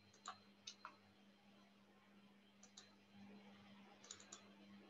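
Near silence broken by a few faint, sharp computer-mouse clicks, scattered: two in the first second, a pair a little before the middle and a quick cluster of three near the end. A faint steady hum sits underneath.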